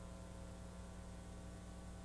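Steady electrical mains hum with a buzz of evenly spaced overtones, under a constant hiss; no tool sound stands out.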